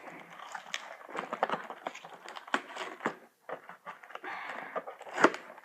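Toy packaging being worked open by hand: irregular crinkling, crackling and clicking of plastic and cardboard as stuck tape is pulled at, with one sharper snap about 5 seconds in.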